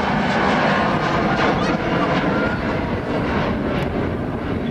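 Twin-engine jet airliner climbing out after take-off, its engines at take-off power making a loud, steady roar with deep rumble that eases a little in the last second or two.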